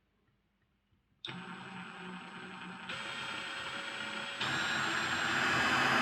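Mini drill motor switching on about a second in and running with a steady whine that gets louder in two steps, drilling a small hole through a model locomotive's copper current pickup.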